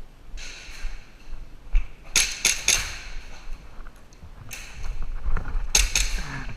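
Airsoft guns firing: three sharp pops in quick succession about two seconds in, and two more near the end, with scuffing noise around them.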